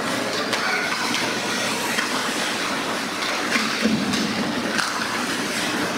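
Youth ice hockey play echoing through an indoor rink: a steady scrape of skate blades on the ice with scattered clacks of sticks and puck. A heavier bump of players against the boards comes about four seconds in.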